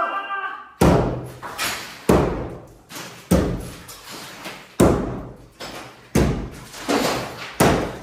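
Hammer blows knocking old plaster off a wall near the ceiling: about nine sharp, uneven strikes roughly a second apart. Each strike echoes briefly in the bare room.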